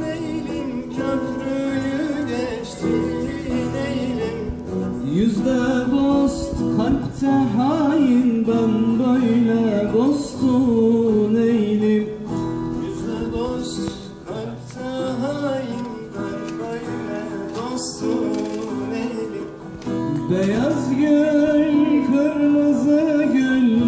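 Live Turkish folk song: a man sings into a microphone, amplified, accompanied by a plucked long-necked bağlama (saz) and an acoustic guitar.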